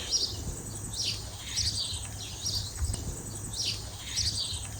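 Small birds chirping: short high calls, about two a second, over a low steady background rumble.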